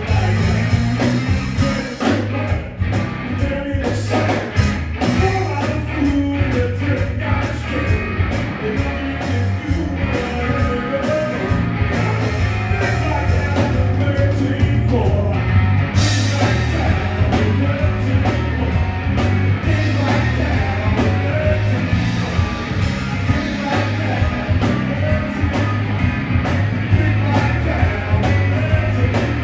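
Live blues-rock band playing: electric guitar, electric bass and drum kit, loud and steady. The sound grows brighter about halfway through.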